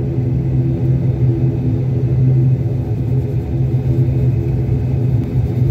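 Airliner engines heard from inside the cabin while the plane taxis: a steady, loud, low drone with a strong hum.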